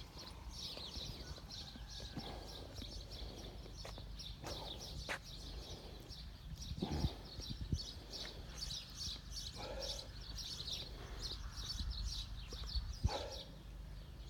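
Small birds chirping continuously in many short, high notes, with a few footsteps on paving.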